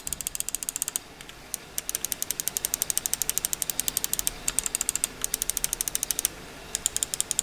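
Main buttons of a Dream Machines DM6 Holey S gaming mouse, fitted with Huano switches, clicked rapidly over and over in several quick runs with short pauses between them. The switches are slightly stiffer than the usual Omrons, with a sharp, crisp click.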